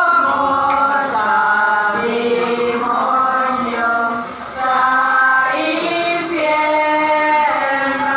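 A group of voices singing gozos, a Filipino devotional hymn of praise, in slow, held notes that glide from one syllable to the next.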